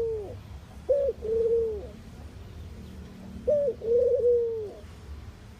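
Mourning dove cooing: two low, soft coo phrases about two and a half seconds apart, each a short rising note followed by a longer held coo that drops away at the end, with the tail of a third phrase right at the start.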